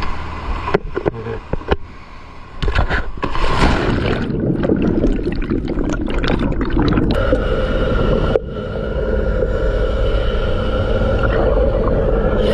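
Water gurgling and sloshing with scraping and knocks, as from a boat hull being cleaned in the water. A steady hum sets in about seven seconds in.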